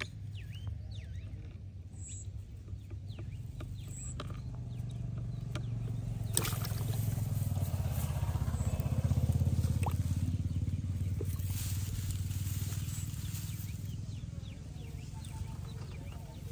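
A low engine hum that swells to its loudest about nine or ten seconds in and then fades again, with small birds chirping in the first few seconds.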